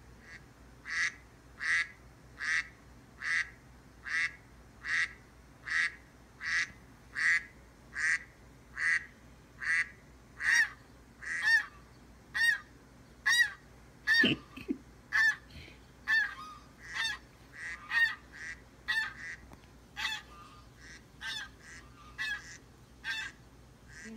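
Recording of ducks quacking played through a laptop speaker: a long run of short quacks about one every 0.8 seconds, growing more uneven and overlapping in the second half. A brief low thump about halfway through.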